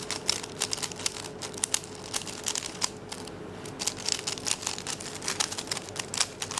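Plastic 3x3 speedcube (a Dayan Zhanchi) clicking and rattling as its layers are turned in quick, irregular runs of moves during the final corner steps of a beginner's-method solve.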